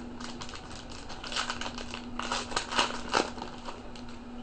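Trading card pack wrapper being torn open and crinkled by hand: a run of crackling rustles, loudest between about one and a half and three seconds in.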